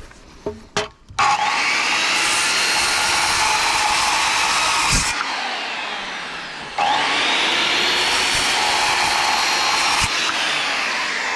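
Corded Skilsaw circular saw cutting through a 4x4 in two passes: it starts about a second in, runs through the wood for about four seconds and winds down, then starts again and cuts for about three seconds before winding down. The blade is too shallow to get through the 3½-inch post in one pass.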